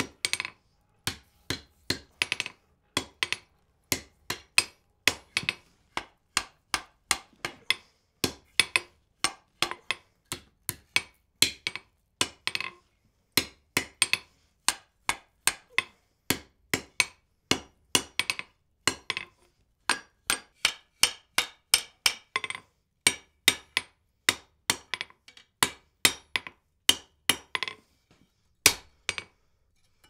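Hammer forging wrought iron on a steel anvil: a steady rhythm of ringing metal-on-metal blows, about two a second, many a heavy strike followed by a lighter one, stopping shortly before the end.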